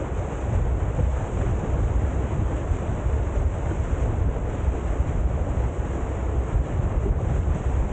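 Fairline Targa 38 motor cruiser underway at speed: steady wind buffeting the microphone over the rush of water from its hull and wake, a constant low rumble with no change.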